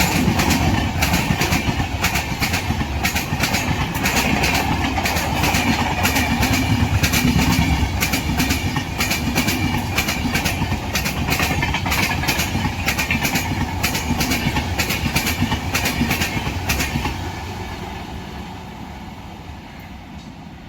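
Express train passing through a station at speed, its wheels clattering rapidly over the rail joints over a steady rumble. Near the end the clatter stops and the sound fades away as the train recedes.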